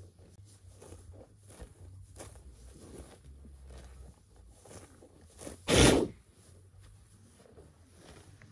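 White rhinoceros grazing at close range: a run of short rips as its broad lips tear off grass, with one loud blast of breath through the nostrils lasting under half a second, just before six seconds in.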